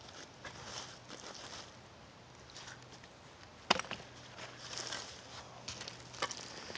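Hand digging tool scraping and poking through dump soil, with scattered sharp clicks as it strikes buried debris such as glass and brick; the loudest click comes a little before the halfway point.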